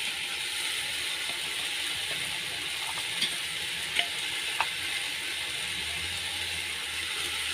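Aluminium pot of fried vegetables in hot oil sizzling steadily as soaked red lentils (masoor dal) are spooned in from a plastic bowl, with a few light clicks of the spoon against the bowl and pot.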